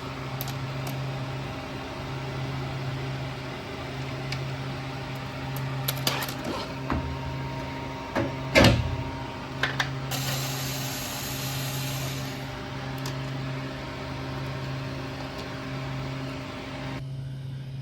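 Steady machine hum, as of kitchen fans or a refrigeration unit, with a few short clicks and knocks in the middle, one of them louder than the rest.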